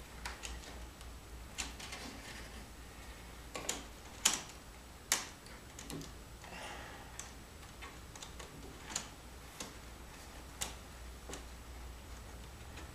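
Irregular light clicks and taps of wires and pliers being handled against plywood and wood framing as the wiring is pulled through and tidied, over a low steady hum.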